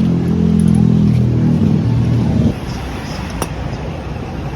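A motor vehicle engine running steadily that cuts off about halfway through, followed by a single sharp click.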